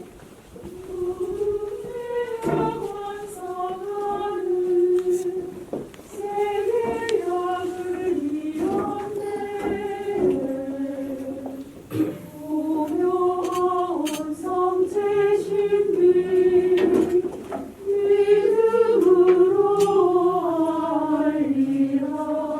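Church choir singing a slow hymn in phrases, with short breaks for breath between them.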